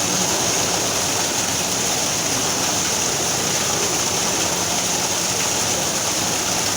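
Waterfall, water falling and rushing steadily.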